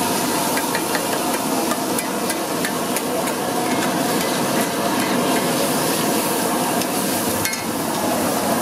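Metal spatula chopping and scraping onions and tomatoes on a flat iron griddle (tawa), with sharp metallic clinks of the blade striking the griddle: a run of them in the first few seconds and a louder one near the end. A steady hum runs underneath.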